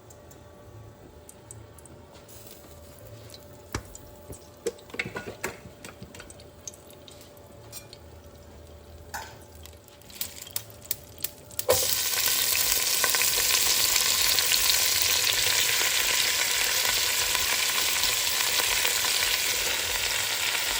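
A few light knocks and clicks of kitchen utensils, then about twelve seconds in a sudden loud, steady sizzle as rinsed chopped cabbage goes into hot bacon fat in a skillet and starts frying.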